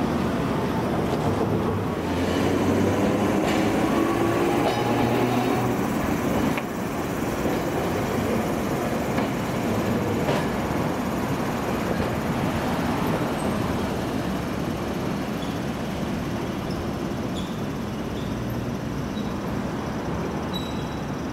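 Hiroshima Electric Railway 1900-series streetcar pulling away from a stop, its traction motors whining upward in pitch as it accelerates over the first few seconds, then rolling along street-running track with a steady running noise.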